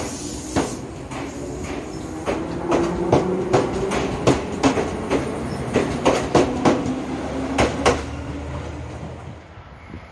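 Ryutetsu 5000-series two-car electric train running past along the platform. Its wheels click in a quick clickety-clack over rail joints, over a low hum and rumble, and the sound fades away as the train leaves, near the end.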